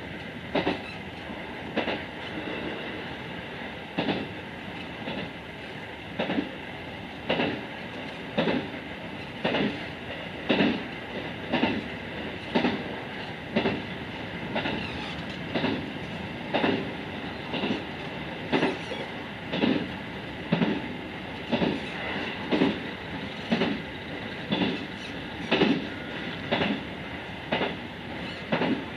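JR West 221 series electric train running, its wheels clicking over the rail joints about once a second in a steady clickety-clack, heard from inside the front car over the steady running noise.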